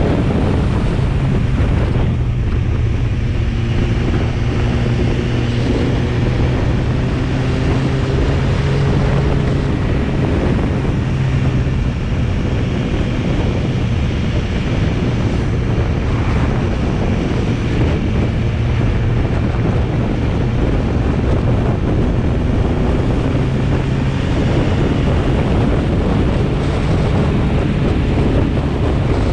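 BMW S1000RR's inline-four engine running at a steady cruise, its pitch drifting only slightly, under constant wind noise on the microphone.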